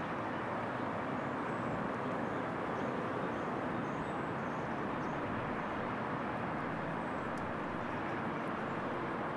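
Steady city street ambience: a continuous hum of distant traffic.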